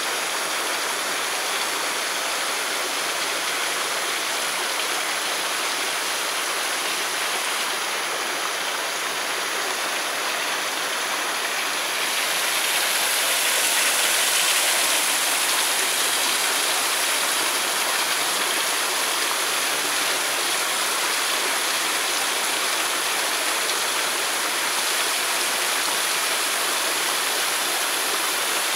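Running water rushing steadily, as from a stream or cascade, growing louder about twelve seconds in.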